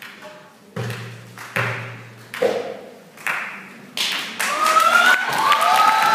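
Darbuka (Arabic tabla) played in single, slow strokes about one every 0.8 s, the first two deep and booming, the next two sharper. About four seconds in, the audience breaks into loud applause and high-pitched cheering.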